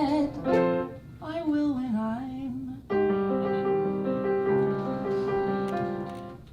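Piano ending a song: a couple of chords and a short sung phrase with vibrato falling in pitch, then a final held chord about three seconds in that slowly dies away.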